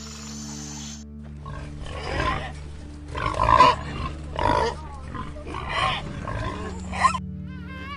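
An animal calling about six times in quick succession, each call a short loud burst. Steady background music plays underneath, and quick, high, repeated chirps begin near the end.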